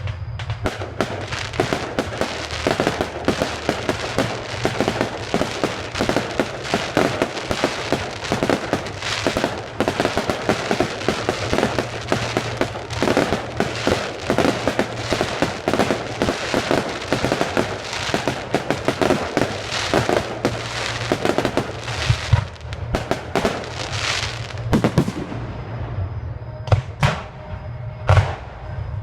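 Fireworks display: a dense, rapid barrage of bursts and crackling for most of the time, thinning out near the end to a few separate loud bangs.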